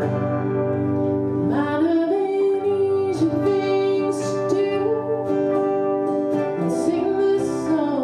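A woman singing with strummed acoustic guitar and electric guitar accompaniment; her voice comes in a little under two seconds in, over the guitars.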